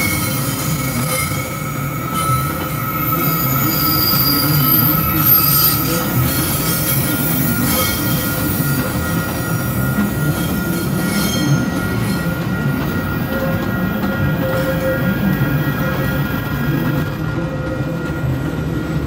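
Stainless-steel Metra bilevel commuter coaches rolling past, their wheels squealing on curved track over a steady low rumble of the running gear. The highest squeal tones fade out about two-thirds of the way through while a lower squeal carries on.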